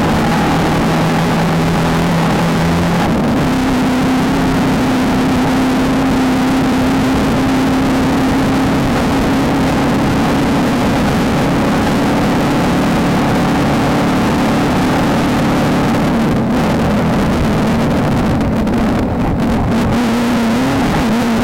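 Off-road race car engine running hard and steady. Its pitch steps up about three seconds in and dips briefly near the end, over a constant rush of wind and rolling noise.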